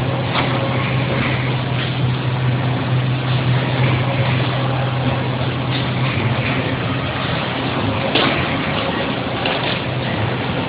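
Case making machine running: a steady low motor hum under broad mechanical noise, with a couple of brief sharp clicks.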